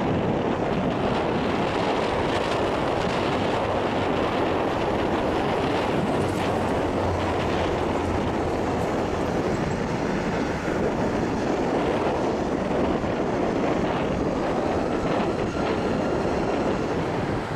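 The two GE90 turbofan engines of a Boeing 777-200 running at taxi power: a steady rushing rumble.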